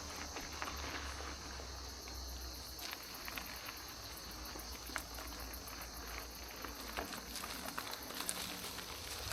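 Insects chirring steadily in the bush, a constant high-pitched drone, over a low rumble and scattered faint ticks.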